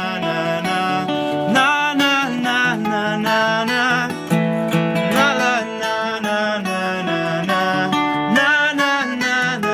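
A man singing a song to strummed acoustic guitar.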